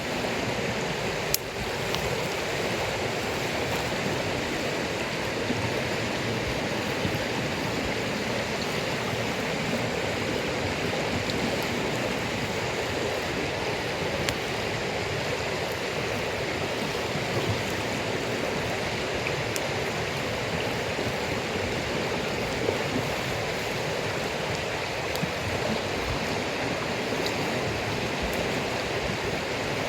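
Campfire of damp firewood giving a few sharp pops, the loudest about a second and a half in, over a steady rushing, water-like noise.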